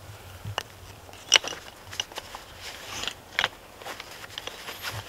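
Handling noise from a friction turkey call that has been wetted out: a few sharp clicks and light scratching, the loudest click about a second and a half in.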